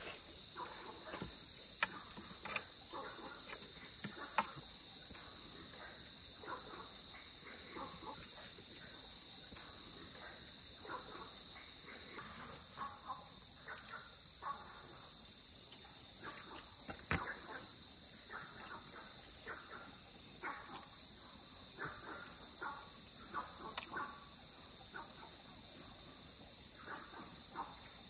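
Steady high-pitched insect chorus in the forest, with short rapid chirping trills that come and go every few seconds, and a single sharp click late on.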